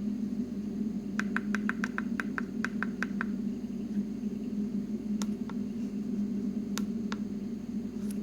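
Buttons pressed on a CNC controller's keypad: about ten quick clicks in a row, then a few single presses. A steady hum runs underneath.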